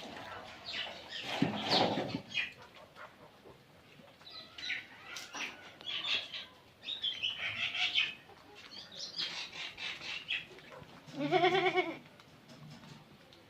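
Farmyard chickens and birds chirping and clucking, with a goat bleating once, loudly, near the end.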